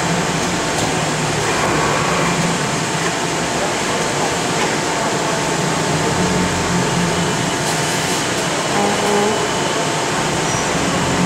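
Induction hardening machine running: a steady, even hiss with a faint steady high tone and a low hum, as quench water sprays onto the heated part inside the machine's clear guard.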